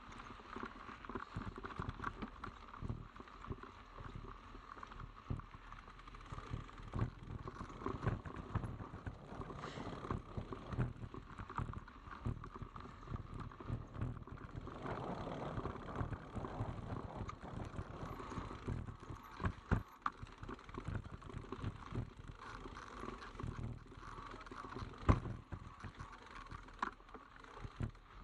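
Mountain bike rattling and clattering along a rough, technical trail, with irregular knocks from the bike jolting over the ground and a few sharper knocks, the loudest near the end.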